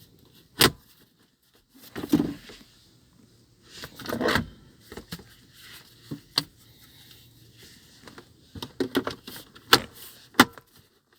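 Plastic dashboard trim being handled and pressed back into place: scattered sharp clicks and knocks, with a couple of longer scraping rustles.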